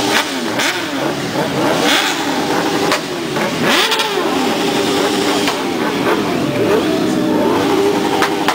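Several sport motorcycle engines revving in repeated blips, their pitch rising and falling and overlapping, with a few short sharp cracks.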